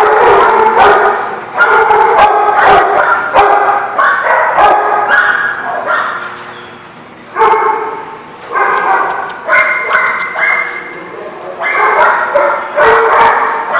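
Dogs vocalizing as they play-wrestle: excited barks and yips in repeated bouts, with a short lull about six to seven seconds in.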